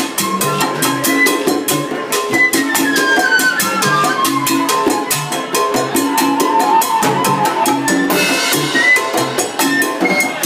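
Live salsa band playing, with drums and percussion keeping a steady, busy beat. A melodic line runs downward from about two seconds in.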